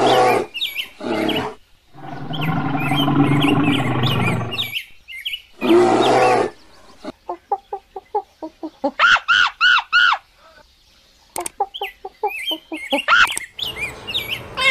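A run of animal calls: bird-like clucking and chirping in bursts, then a string of short calls with rising-and-falling pitch about halfway through.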